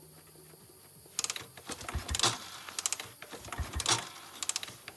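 Irregular short clicks and light knocks, a few a second, starting about a second in.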